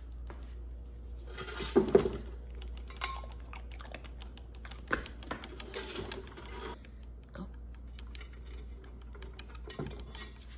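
Irregular clicks, taps and rustling as a dog is handled into a plywood go-kart seat: claws and the metal harness ring on the wood, with a louder knock about two seconds in.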